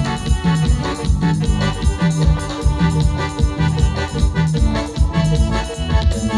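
Instrumental passage of a Latin dance song: an organ-like keyboard over bass and percussion, with a steady, even beat.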